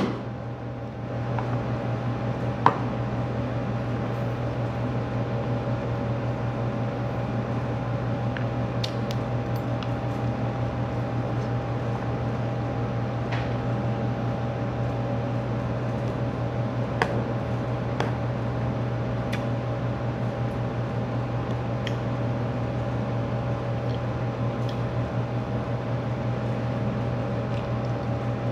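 Window-unit air conditioner running with a steady hum. Short clicks of a metal spoon against a plastic food container come every few seconds, unevenly.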